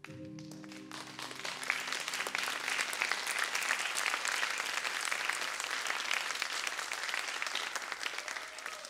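Audience applause that swells from about a second in and carries on steadily, dense with individual claps. The last notes of the music ring out and die away under its start.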